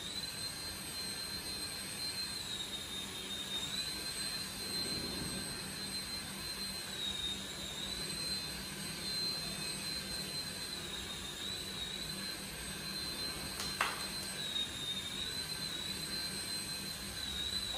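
Toy helicopter's small electric motor whining steadily with a high tone, dipping slightly in pitch every few seconds, with a single click about fourteen seconds in.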